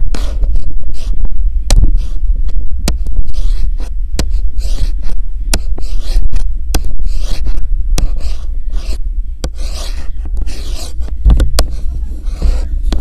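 Handling noise: a phone's microphone rubbing and scraping against clothing while it is carried, over a steady low rumble, with many sharp clicks scattered through it.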